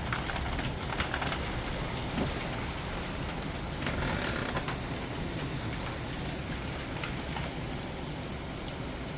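Heavy thunderstorm rain falling steadily, an even hiss, with a few light clicks.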